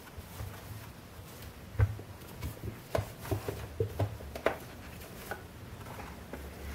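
Handling noise as hands slide a boxed radio out of a fabric drawstring bag and its protective wrap: soft rustles with scattered light taps and knocks, the sharpest about two seconds in.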